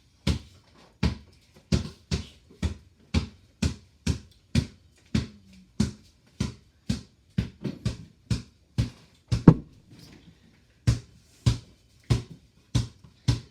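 A ball bouncing over and over on a hard floor, dribbled at an even pace of about two bounces a second, with a brief pause about ten seconds in.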